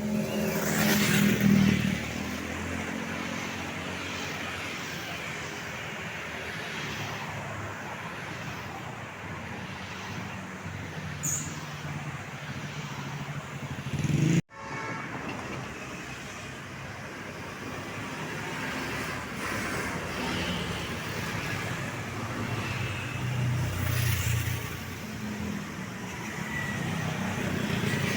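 Road traffic: vehicles passing one after another, the loudest going by in the first couple of seconds and again about 24 seconds in. The sound drops out for an instant about halfway through.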